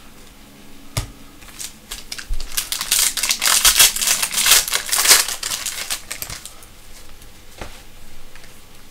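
Foil trading-card pack wrapper crinkling and crackling as it is torn open by hand, loudest for a few seconds in the middle, after a single knock about a second in.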